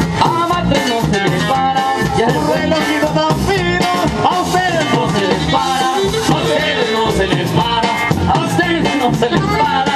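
Live band playing an instrumental passage, with a saxophone melody over guitar and drum kit at a steady, danceable beat.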